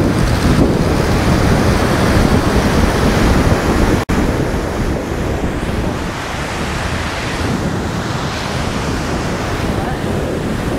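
Steady rush of ocean surf breaking under the pier, mixed with wind buffeting the microphone, with a momentary dropout about four seconds in.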